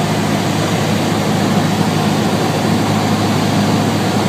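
Cessna 150's Continental O-200 four-cylinder piston engine and propeller running steadily, heard inside the cockpit as a loud, constant drone.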